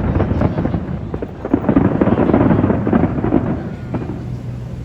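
Aerial fireworks going off in a rapid barrage of bangs and crackling. The barrage eases briefly about a second in, builds again, then thins out near the end with one last single bang.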